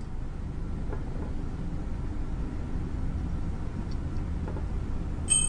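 Steady low background hum. Near the end a short, bright, high-pitched chime sounds: a 'correct' sound effect that marks the right way of pipetting.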